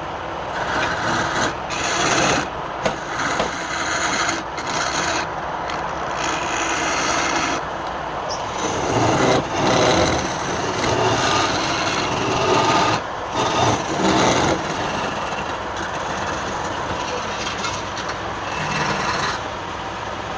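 Wood being worked on a lathe: a tool scraping and cutting against the spinning wood in uneven strokes, with brief breaks between passes.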